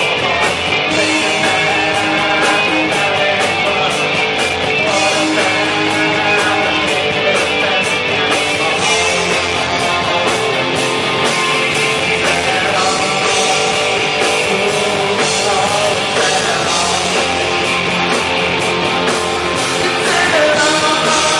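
Rock band playing a song live, guitar to the fore, with some singing, loud and unbroken.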